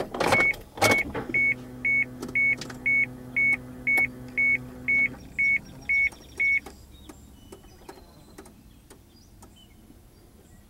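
A few knocks as the camera is set down on the dashboard, then a car's warning chime beeping about twice a second, a dozen or so times, before it stops, with a low steady hum underneath.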